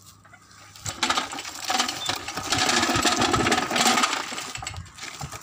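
Metal tyre-service cart rattling and clattering as it is wheeled over rough gravel, loudest in the middle and dying away as it comes to a stop.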